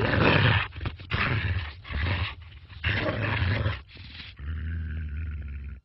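Animal growling in three rough bursts, each about a second long, followed by a steady low tone lasting over a second that cuts off suddenly.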